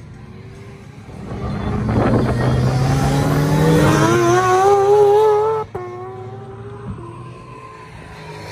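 A car engine accelerating as it passes close, its pitch climbing steadily and growing louder, then cutting off abruptly about five and a half seconds in. A fainter, steadier engine note from a more distant car follows.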